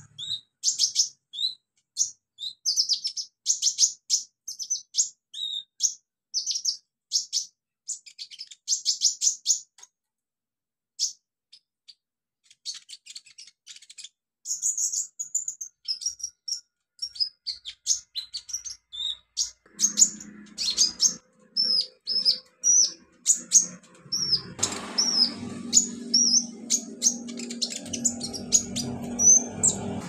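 Van Hasselt's sunbird (kolibri ninja) singing a fast run of high, thin chirps and twitters, with a short pause near the middle. About two-thirds of the way in a low steady hum comes in, and a rushing noise joins it a few seconds later.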